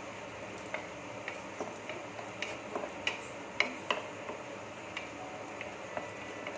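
Wooden spatula stirring a thick tomato masala in a nonstick kadai, tapping and scraping the pan in a run of irregular light clicks, the loudest a little past halfway, over a low steady hiss.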